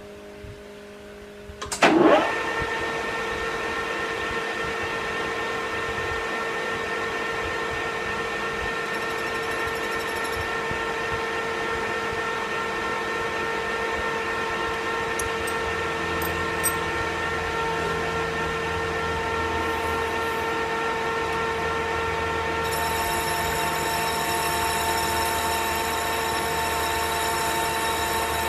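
Metal lathe switched on about two seconds in, its motor sweeping up to speed and then running steadily with a whine of several steady tones. About sixteen seconds in a low hum joins, and the higher tones change again about twenty-three seconds in.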